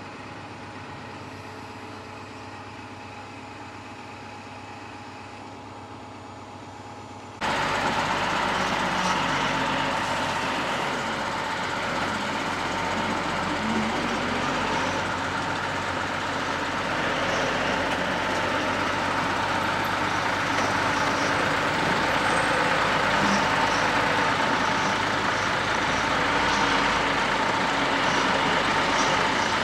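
A steady low hum, then, about seven seconds in, a sudden change to a louder Mercedes-Benz Unimog diesel engine running as it tows a large concession trailer, getting a little louder toward the end.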